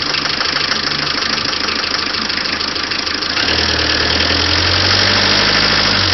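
Renault Kangoo 1.9 diesel engine idling with a heavy knock from a faulty fuel injector. About three and a half seconds in the revs step up and are held higher.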